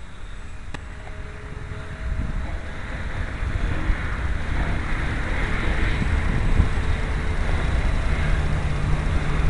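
Wind buffeting the camera microphone in a low rumble that gets louder after about two seconds. Under it is the faint, distant drone of a small foamboard RC plane in flight, from its 1500 Kv electric motor and 8x4 propeller.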